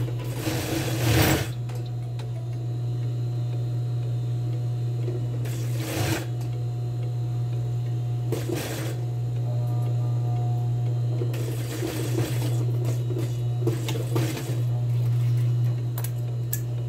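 Industrial sewing machine with its motor humming steadily, stitching in about five short runs spread across the seconds as a waistband is sewn onto a skirt.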